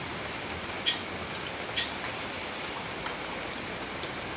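Steady high-pitched chorus of night insects, crickets, with two short faint clicks about one and two seconds in.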